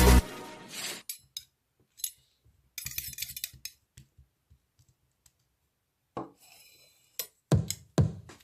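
A song cuts off abruptly, followed by a quiet gap broken by scattered small clicks and clinks. The next music comes back in with heavy beats near the end.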